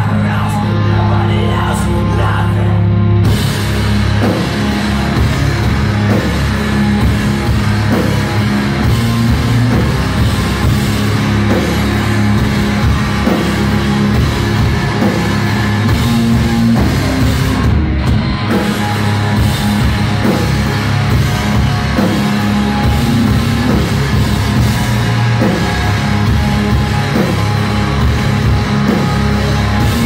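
Live rock band playing loud: electric guitars and a drum kit, with the cymbals coming in about three seconds in.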